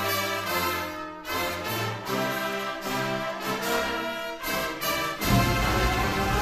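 Orchestral background music with brass. About five seconds in it swells into a louder, fuller passage with deep bass.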